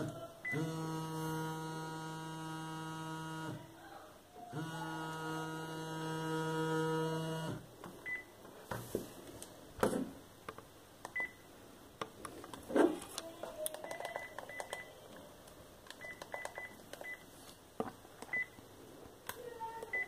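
NEC e616V mobile phone playing its ringtone through its small speaker: two long held electronic notes, each about three seconds. After that come short high keypad beeps and button clicks as its keys are pressed, with one louder click about 13 seconds in.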